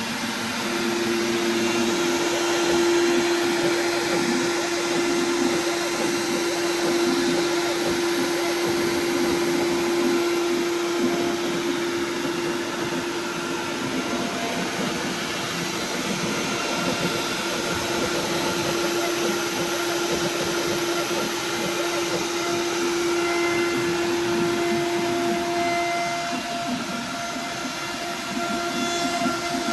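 Inventables X-Carve CNC router cutting wood: the spindle runs with a steady pitched hum over a constant rushing noise, the tone changing a few seconds before the end.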